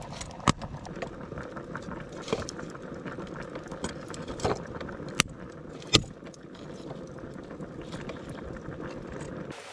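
Steady background hiss with a handful of sharp clinks and knocks, the loudest about half a second in and twice around five to six seconds in; the sound cuts off suddenly just before the end.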